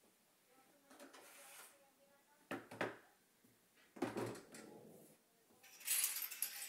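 Flowerpots and small objects being moved off a windowsill and set down on a glass-topped table: a soft rustle, two knocks about a second and a half apart, then a run of quick clicks and rattles near the end.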